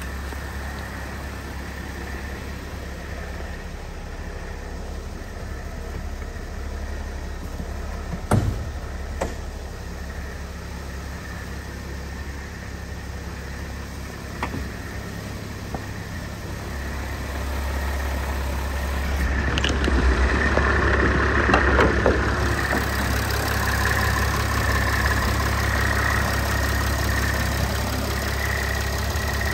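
The 3.0 L V6 turbo diesel of a Mercedes-Benz Sprinter idling steadily, with one sharp knock about a quarter of the way in and a few lighter clicks. The idle grows louder about two-thirds of the way through, with a short stretch of handling noise.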